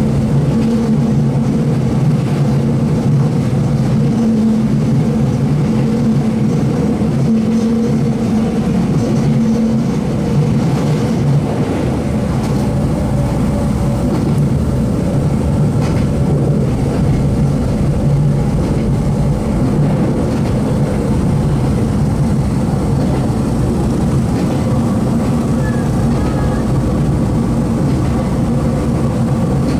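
Kobe Electric Railway electric train running at a steady speed, heard from on board: a loud, even hum of traction motors and wheels on rail with a few held low tones, unchanging throughout.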